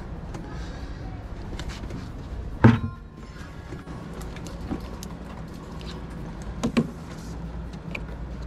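Hand-handling knocks and clicks of plastic hose fittings while a garden hose is hooked up to an outdoor sink's braided supply line: one sharp knock about a third of the way in, a second smaller one later on, and light clicks between, over a steady low rumble.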